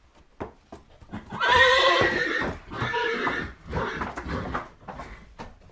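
Horse whinnying: one long quavering call about a second and a half in, followed by shorter, weaker calls, with a few light knocks just before it.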